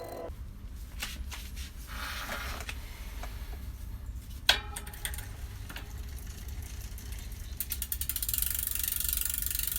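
Bicycle rear wheel with a new cassette being fitted into the frame: scattered clicks and rattles of parts, with one sharp clack about halfway through. From about three-quarters of the way in, the wheel spins with a fast, even ratcheting tick from the rear hub.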